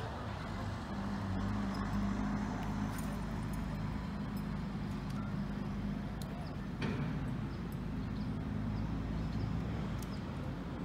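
Steady low engine hum, a motor running at an even speed, with a single knock about seven seconds in.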